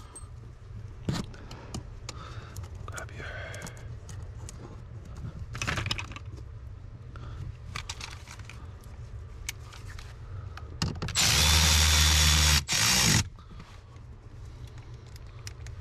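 Light clicks and handling noises, then a power drill runs in two bursts near the end, about a second and a half and then a brief one, with a steady motor whine, driving in a screw.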